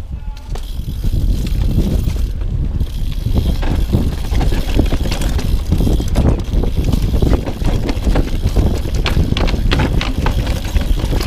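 YT Capra AL2 mountain bike riding fast down a dirt trail: tyres rolling over the dirt with the chain and frame clattering over bumps in quick irregular clicks and knocks, under a heavy rumble of wind on the camera microphone.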